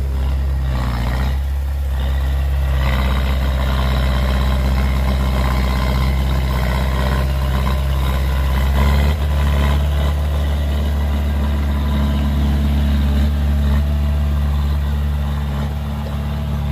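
Komatsu D20A crawler bulldozer's diesel engine running steadily while the machine pushes soil with its blade; the engine note shifts slightly about nine seconds in.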